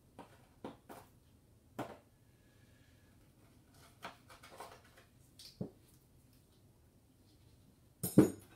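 Gun-cleaning tools being handled and set down on a table: a scatter of small clicks and clinks, with a louder knock near the end.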